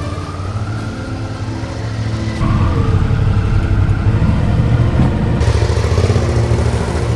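Two large motorcycles pulling away and riding past one after the other, engine notes rising as they accelerate. The sound gets louder about two and a half seconds in as the second bike passes close, then eases off near the end.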